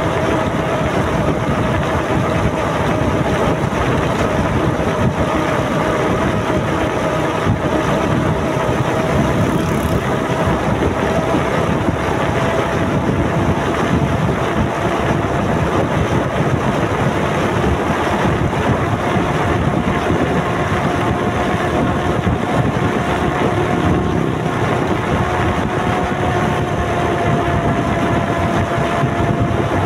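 Motorcycle engine running steadily at cruising speed, with a steady whine that drifts slightly in pitch, mixed with road and wind noise buffeting the microphone.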